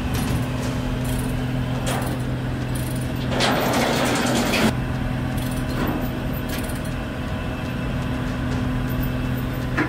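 A heavy vehicle's engine runs steadily at a constant low pitch. About three and a half seconds in, a loud hiss lasts just over a second.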